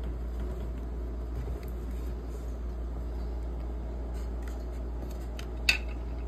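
Small plastic clicks and taps as a Galaxy Z Flip5 Flipsuit case and its blue insert card are handled and taken off the phone, with one sharp plastic click near the end, over a steady low hum.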